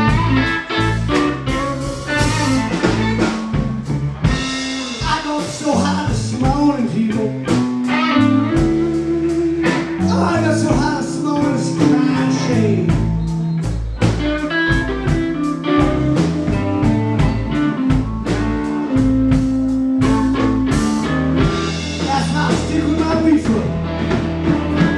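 Blues played live by a small band: electric guitars over bass and drums, with a steady beat.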